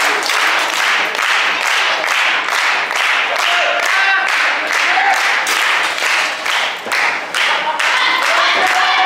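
A wrestling crowd clapping in a steady rhythm, about three claps a second. A few short shouts rise over it, mostly near the end.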